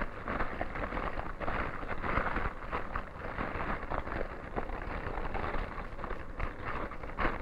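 Fingers squeezing and crumbling fresh brewer's yeast in lukewarm water in a bowl: irregular soft wet squishing and small splashing clicks, over a steady hiss.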